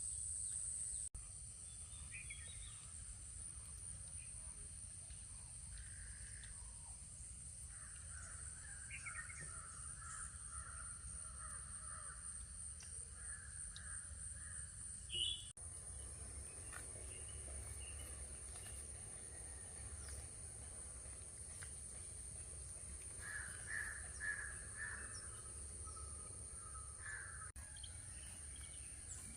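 Crows cawing now and then over a steady high-pitched hum and low background rumble.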